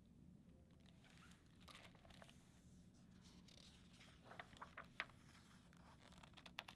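Faint rustling and light taps of a hardcover picture book being opened and its pages turned by hand, with a sharper tap about five seconds in.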